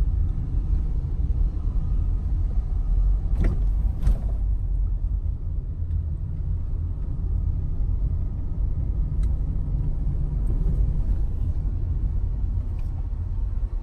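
Steady low rumble inside a moving car: engine and tyre noise. Two short knocks come about three and a half and four seconds in.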